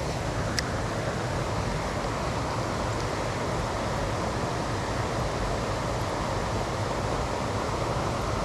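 Steady rushing of a flowing river, an even wash of water noise with a faint click about half a second in.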